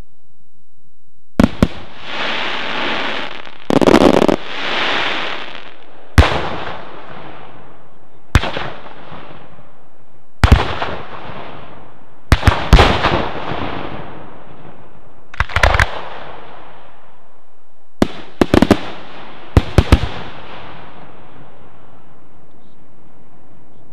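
Fireworks display: a string of sharp, loud bangs from bursting fireworks, single or in quick clusters of two to four, coming every two seconds or so. Several are followed by a fading hiss.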